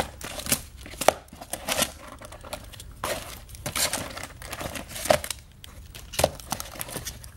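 Plastic coin flips and bags crinkling and clicking in irregular bursts, with a few sharper clicks, as coins in them are picked up one by one and counted.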